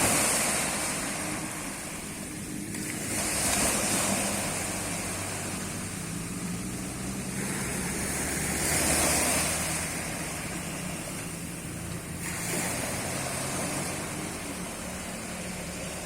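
Sea waves breaking on a beach: a steady wash of surf that swells four times, a few seconds apart, as each wave comes in. A low steady hum runs underneath.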